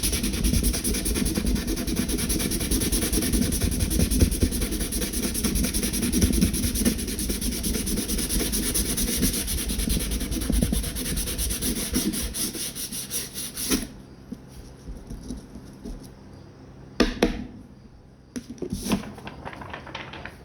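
Coarse 60-grit sandpaper rubbed by hand over knife handle scales in quick, continuous strokes, scratching up the surface for epoxy. The sanding stops about two-thirds of the way through, followed by a few short handling knocks.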